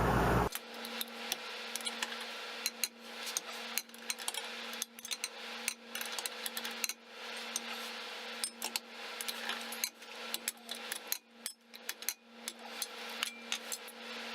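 Metal tools clinking and knocking in short, irregular taps over a steady low hum, while the pinion yoke nut of a Dana 30 front differential is worked off.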